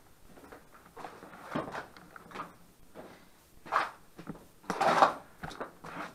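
A series of irregular knocks and scrapes, loudest about four and five seconds in.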